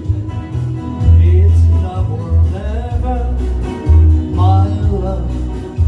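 Music with singing: a melodic vocal line over steady bass notes and guitar.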